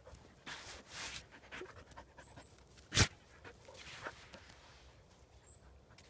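Dog panting in quick breaths during the first second or so, then softer rustling and one sharp click about three seconds in.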